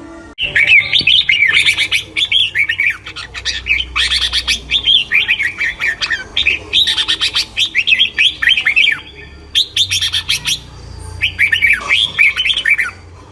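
A songbird singing: runs of quick, varied twittering chirps, starting abruptly just after the start and broken by a few short pauses.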